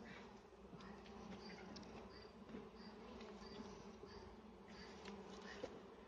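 Faint, steady hum of western honeybees (Apis mellifera) flying around an open wooden hive.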